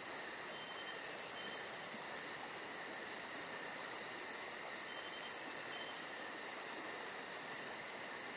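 Steady insect chorus of crickets trilling, with a very high, fast pulsing of about five chirps a second on top. The pulsing stops about six and a half seconds in and returns near the end.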